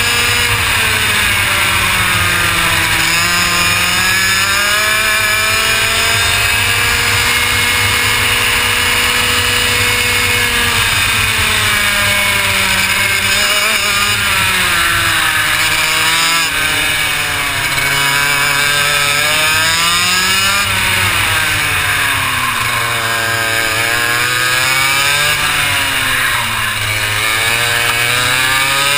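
Onboard sound of a 125cc two-stroke racing kart engine at speed, its pitch climbing on the straights and dropping under braking into the corners. In the second half it rises and falls several times in quick succession through a run of tight turns.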